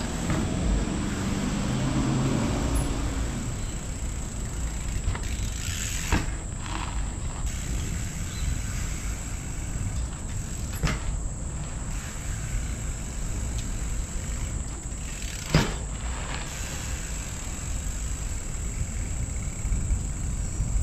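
Trials bike knocking sharply three times, about five seconds apart, as it is pivoted on its front wheel. Under the knocks run a steady low rumble and a steady high-pitched insect drone.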